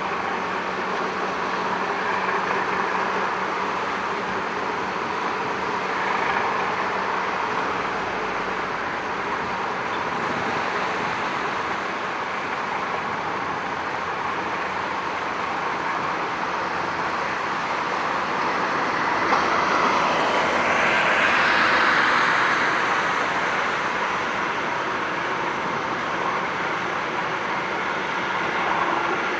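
Steady road traffic noise that swells into a louder passing about twenty seconds in, then settles back.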